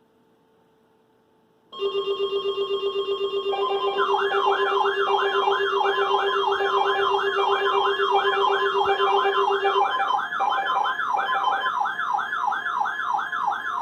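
Electronic alert siren: a rapid low beeping and steady tones start about two seconds in, and about two seconds later a fast-warbling siren tone joins, wailing up and down about two and a half times a second. The beeping stops near the end while the warbling siren continues.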